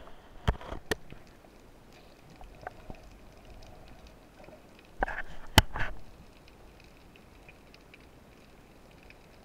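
Underwater recording of a speargun-mounted camera: a faint steady hiss of the sea with scattered small ticks, broken by two sharp clicks in the first second and a louder cluster of knocks about five seconds in, typical of gear bumping the gun or camera housing.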